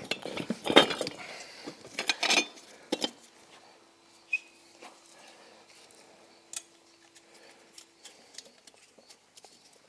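Metal tools and wheel hardware clinking and knocking a few times in the first three seconds, then quieter handling with a couple of light clicks over a faint steady hum.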